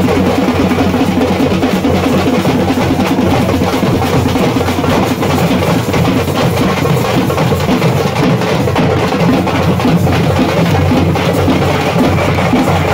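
Loud music driven by drums, with a dense beat that runs on without a break.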